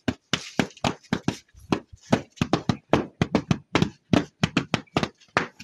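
Two long thin sticks beating a thick stuffed quilt, a rapid, uneven run of thwacks at about seven a second, done to spread and even out the filling.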